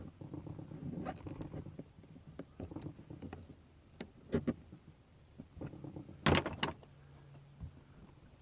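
Hands working a car fuel pump assembly free: scattered clicks, knocks and scrapes of metal and plastic parts, with a sharper cluster of clicks about six seconds in.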